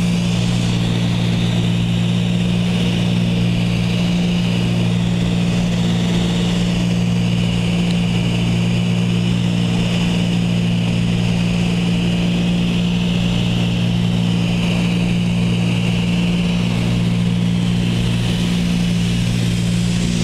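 Cessna 310's twin piston engines and propellers droning steadily in flight, heard from inside the cabin, with a constant deep hum and a steady airflow hiss over it.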